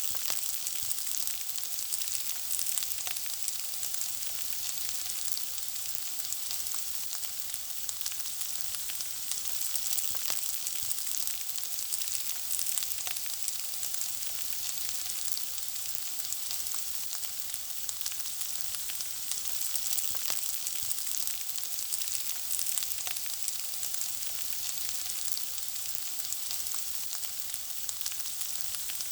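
Food frying in hot oil: a steady, high sizzle full of tiny crackles and pops.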